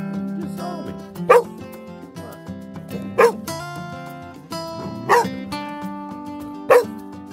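Young livestock guardian dogs barking at a stranger: four single barks, about two seconds apart, as a warning. Background music with steady held notes plays under the barks.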